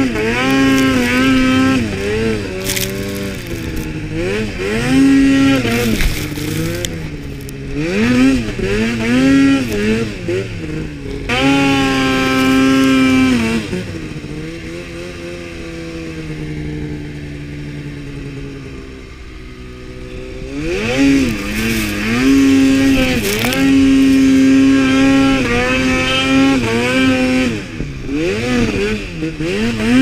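Mountain snowmobile's two-stroke engine revving up and down under throttle in deep powder. About halfway through it eases off to a lower, quieter note for several seconds, then revs up again.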